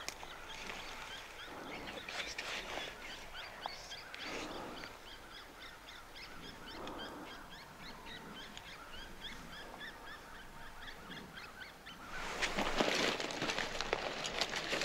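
A flock of small birds chirping, many short overlapping calls in quick succession. About twelve seconds in, a louder rustling and crunching noise with sharp clicks takes over.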